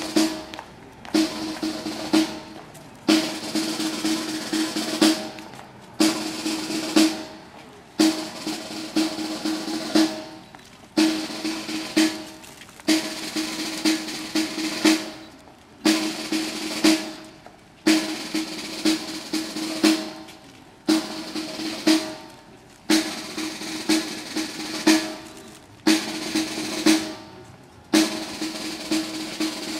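Snare drum roll played over and over in phrases about two seconds long, each opening with a sharp accented stroke and fading out before the next. It is the ceremonial drum roll that accompanies the laying of wreaths.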